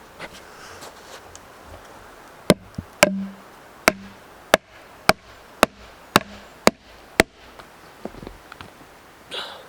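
Hatchet chopping wood: about nine sharp strikes, roughly two a second, beginning a couple of seconds in and stopping a few seconds later.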